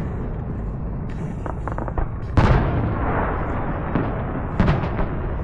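Fireworks going off: a quick string of crackles, then a loud bang about two and a half seconds in with a fading rumble after it, and another bang near the end, over a steady low rumble.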